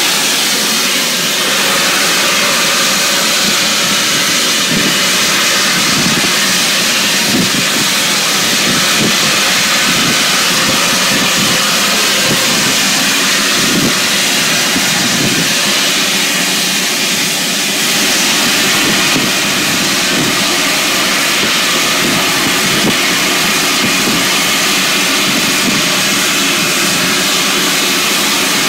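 Flying Scotsman, an LNER A3 Pacific steam locomotive, blowing off steam at platform level as it prepares to leave: a loud, steady hiss of escaping steam.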